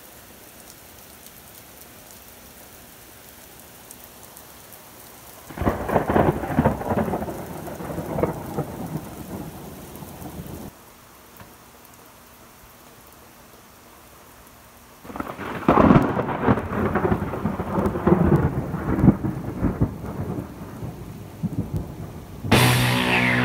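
Steady rain falling, broken by two long peals of thunder, each rumbling with sharp cracks for several seconds and then cutting off abruptly. Music with a steady low tone starts near the end.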